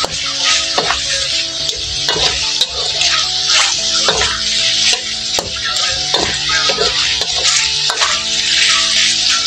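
Pork pieces frying in soy sauce in a metal wok, sizzling steadily, while a metal spatula stirs and scrapes against the wok in repeated strokes.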